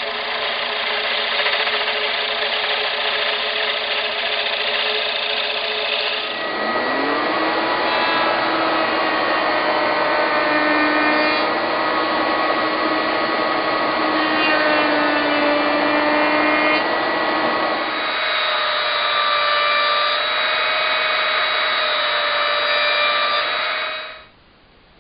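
Wood lathe motor running with a buffing wheel spinning on its spindle, a steady machine hum and whine. About six seconds in the pitch glides up as the speed changes, the tone shifts again later, and it stops near the end.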